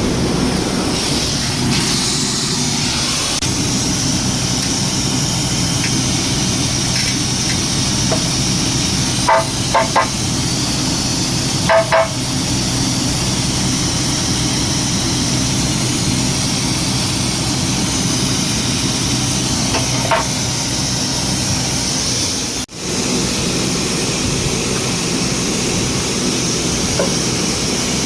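Ford Ranger 2.2-litre engine running steadily, recorded for the knocking noise it is suspected of making. A few short, high chirps come through about nine to twelve seconds in and again near twenty seconds, and the sound drops out for an instant a little past twenty-two seconds.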